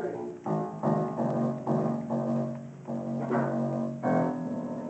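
Instrumental music with slow, held notes changing every half second to a second.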